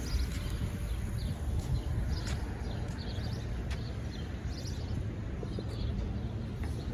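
Outdoor ambience on a walk: a steady low rumble of wind on the microphone and distant traffic, with faint footsteps on pavement and a few faint bird chirps.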